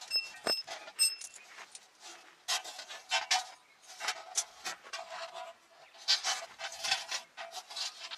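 Pine firewood burning in a campfire, crackling and popping irregularly. A few brief metallic pings sound in the first second.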